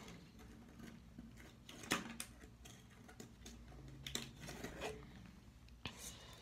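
Faint scattered taps and clicks of a hand moving things about in a wire-mesh hermit crab cage, with a few small knocks about two, four and six seconds in.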